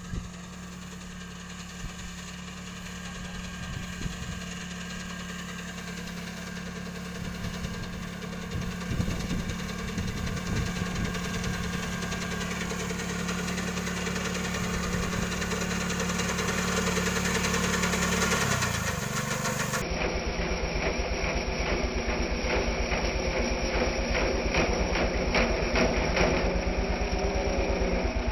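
Engine of a small rice harvesting machine running steadily, its pitch dipping briefly about two-thirds of the way through. The sound then changes abruptly to a louder, closer engine run with a rapid, even firing beat.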